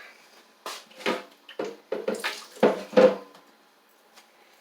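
Dishes clattering as a bowl is got out and set down: a run of about seven knocks and clinks, the last two the loudest.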